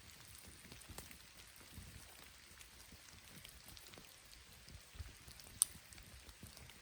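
Faint patter and scattered ticking of light rain around a bamboo bonfire, with one sharp pop about five and a half seconds in.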